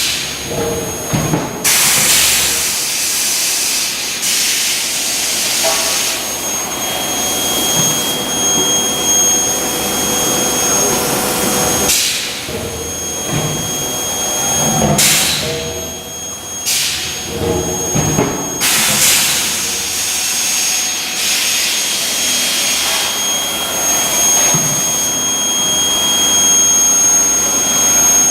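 Induction bar-end forging furnace running, a steady high-pitched whine coming in about six seconds in and holding over continuous machinery noise, with several loud bursts of hiss along the way.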